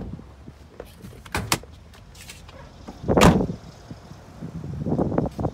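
Hood of a 2012 Toyota FJ Cruiser being popped open. A couple of sharp clicks come from the release lever and latch about a second and a half in, a loud thump follows about three seconds in, and there is handling noise near the end as the hood is raised.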